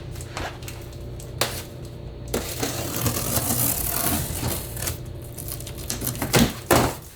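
Scattered sharp clicks and knocks with a stretch of rustling noise in the middle, over a steady low hum.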